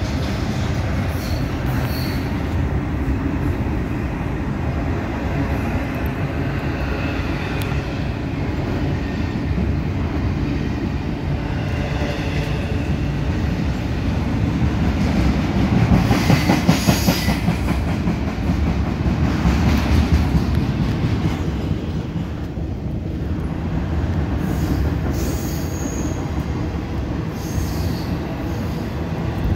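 Double-stack container train cars rolling past: a steady rumble and rattle of steel wheels on rail that swells louder about halfway through, with short high-pitched wheel squeals now and then.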